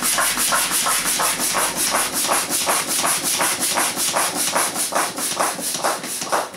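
Hand balloon pump worked in quick, even strokes, a hiss of air with each stroke at about four or five a second, inflating a clear 12-inch latex balloon. The pumping stops suddenly near the end.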